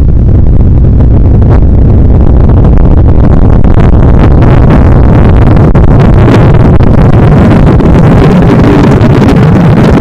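Electronically generated white noise with a heavy bass boost, played at full scale so that it is extremely loud and distorted. From about four seconds in its hiss spreads higher and brighter over the steady low rumble.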